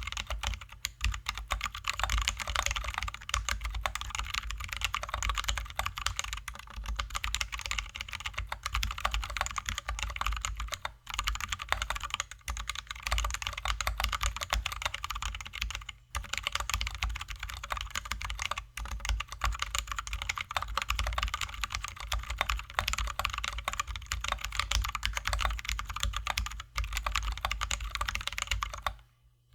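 Fast, continuous typing on a Drop ALT High-profile mechanical keyboard with lubed, filmed Zealios V2 67g tactile switches and XDA-profile keycaps. The keystrokes run in a dense stream with a few brief pauses and stop just before the end.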